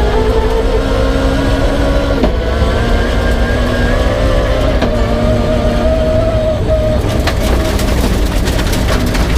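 Peugeot 306 rally car's engine pulling hard through the gears, its note climbing steadily, with a quick upshift about two seconds in. Near the end the engine note falls away as a rapid clatter of stones hits the car.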